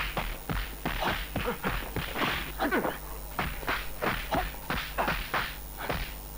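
Kung fu fight sound effects: a fast run of smacks from punches and blocks, several a second.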